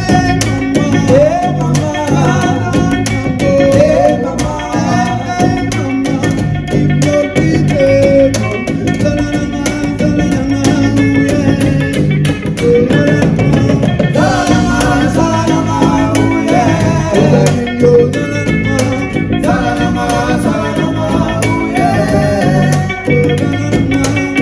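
Live band music: a man singing into a microphone over guitar and a steady beat.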